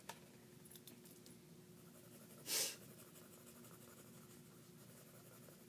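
Faint scratching of drawing on sketchpad paper, with one short, louder swish about two and a half seconds in.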